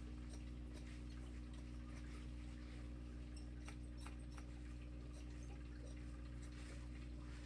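Electric hair clipper running with a steady low buzz, with faint light clicks and snips of cutting as it works through the hair.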